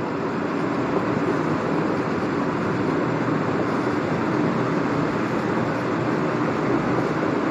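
Steady rushing background noise with a faint low hum, unchanging throughout.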